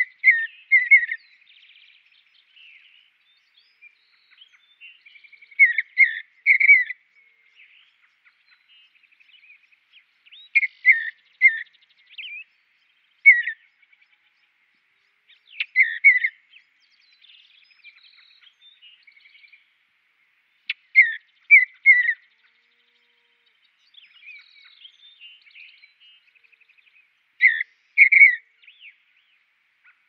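Bluebird singing: short phrases of two or three falling whistled notes, repeated every few seconds, with fainter chirps between the phrases.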